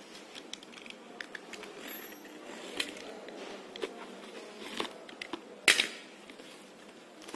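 Utility knife slitting packing tape and plastic wrap on a cardboard carton, with scattered crackles and clicks of the film and cardboard. Near the end there is one louder, short rip as the taped flaps are pulled open.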